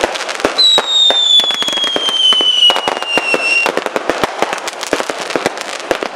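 Fireworks going off in a dense run of sharp bangs and crackles. Over them, a pyrotechnic whistle sounds for about three seconds, falling slowly in pitch, starting about half a second in.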